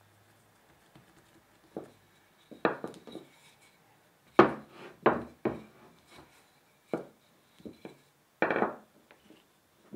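Wooden rolling pin knocking and rolling against a silicone baking mat as it flattens the end of a rope of bagel dough: a series of separate knocks, the loudest a little under halfway in, with a longer rolling stroke near the end.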